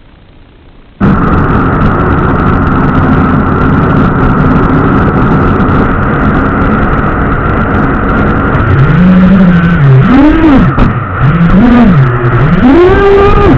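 FPV quadcopter's motors heard through the video transmitter's onboard microphone: they start up suddenly about a second in and hum steadily with a high tone, then in the second half the pitch rises and falls again and again as the throttle is pushed up and let off.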